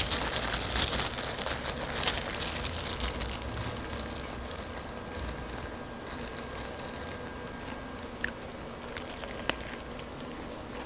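Disposable plastic gloves crinkling and crispy fried chicken crackling as it is handled, loudest in the first few seconds, then quieter with a few sharp clicks.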